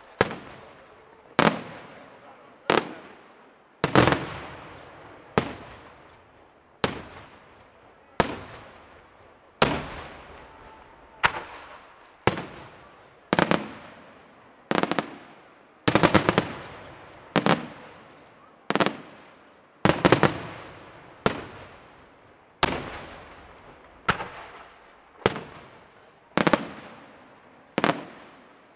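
Aerial firework shells bursting in a steady series, one sharp bang about every second and a half, each echoing away before the next. A few come as quick doubles around the middle.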